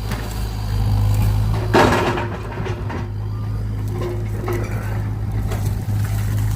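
Excavator's diesel engine running steadily, with a short, louder noise about two seconds in and a fainter one about four seconds in.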